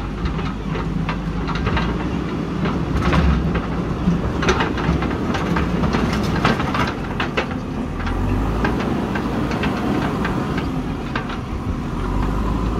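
JCB 3DX backhoe loader's diesel engine running steadily as the machine drives and turns over loose soil, with frequent sharp clanks and rattles from the machine throughout.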